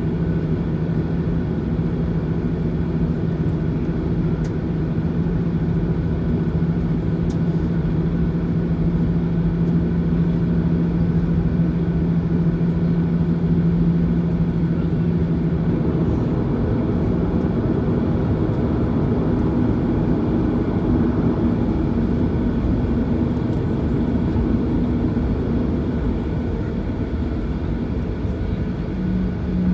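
Boeing 737-900ER's CFM56-7B engines running at taxi power, heard inside the cabin over the wing: a steady drone with a low hum whose pitch shifts a little just past halfway and returns near the end.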